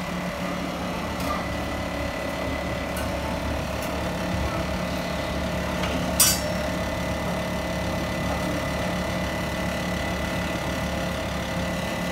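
A steady motor-like hum with a thin high whine over it, a few light ticks, and one sharp clink about six seconds in.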